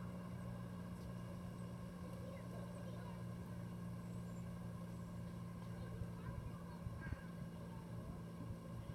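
A steady, unchanging low engine hum, with a few faint short chirps over it.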